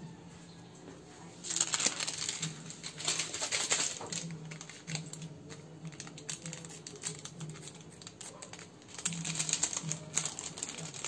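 Plastic seasoning packets crinkling as they are handled, snipped open with kitchen scissors and shaken out, in two spells of dense crackling: one about a second and a half in, the other near the end.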